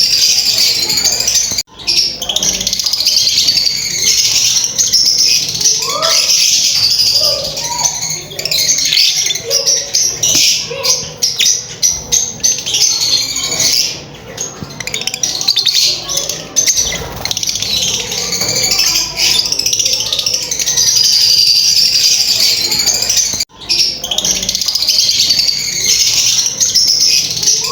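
Lovebirds chattering and chirping continuously, many shrill, high calls overlapping, broken by two very short gaps.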